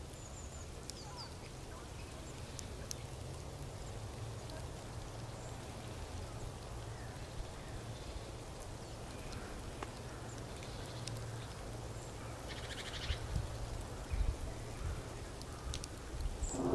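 Faint woodland ambience: a steady low rumble with scattered small clicks and a few brief distant bird calls, including a short rattling call late on.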